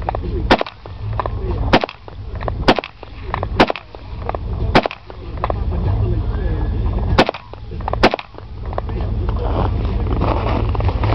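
AK-47 rifle firing seven single shots, roughly a second apart, with a longer pause after the fifth shot.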